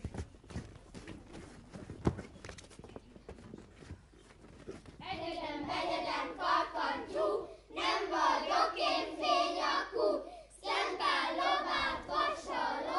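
Children's footsteps and shuffling on a wooden stage, then about five seconds in a group of children's voices starts singing together in phrases of a couple of seconds each.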